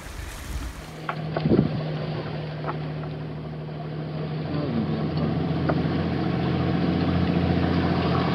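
Wind and water noise on the microphone for about a second, then a steady low engine hum that grows slowly louder: the catamaran's engine running under way.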